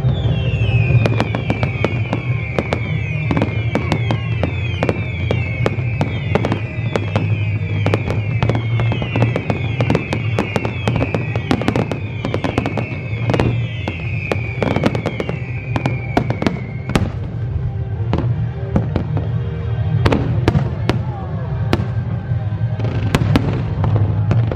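Fireworks display: rapid bangs and crackling bursts throughout, with a low steady rumble. For the first two-thirds, many overlapping falling whistles repeat in quick succession, then stop.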